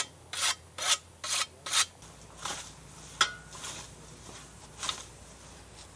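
A hand tool scraping and digging in soil to uncover a buried landmine: five quick strokes, about two a second, then a few slower, fainter scrapes and a single click.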